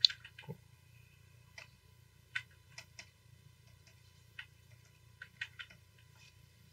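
Scattered light clicks and taps, about a dozen at irregular intervals, the loudest right at the start, from someone working a computer drawing setup.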